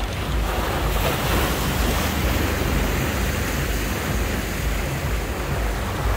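Surf washing onto the shore, a steady rushing hiss that thickens about half a second in, with wind buffeting the microphone as a low rumble underneath.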